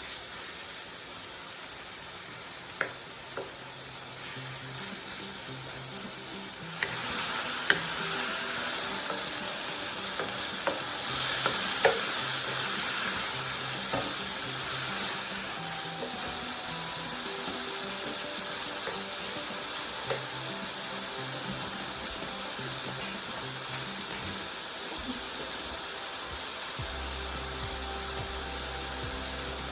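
Food sizzling in hot oil in a pan, the sizzle growing louder about seven seconds in, with a few sharp clinks of a utensil against the pan.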